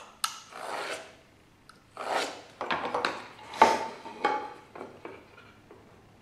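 Marking knife drawn along a combination square, scratching a scribe line across the grain of a wooden board in a series of short strokes, with a few sharp clicks between them. The knife line cuts the fibres so the cross-cut will not tear out.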